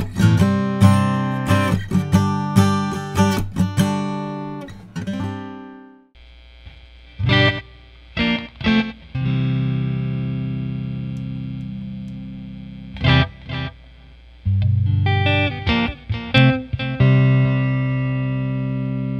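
Acoustic guitar strummed in steady chords. About six seconds in, it gives way to an electric guitar played through a Johnson Marquis combo amp: single chords struck and left to ring, over a steady hiss.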